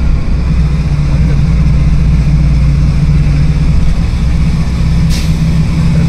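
Vehicle engine running steadily with a loud low hum while climbing a mountain road, heard from inside the vehicle. A brief hiss comes about five seconds in.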